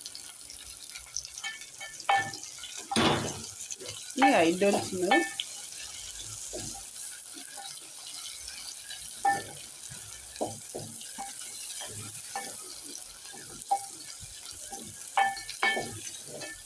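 Chopped onions and garlic frying in a pot with a steady sizzle, while a spoon stirs and knocks against the pot in short, irregular strokes.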